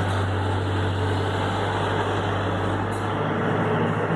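A steady mechanical drone with a constant low hum, running evenly without change.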